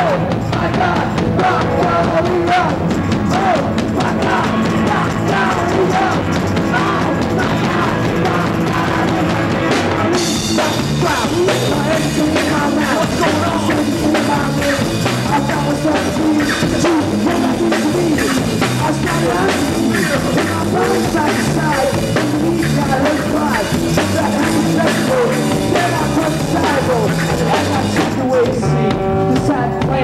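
Rock band playing live on drums, electric guitars and bass. About ten seconds in the sound grows brighter and fuller, and it thins again just before the end.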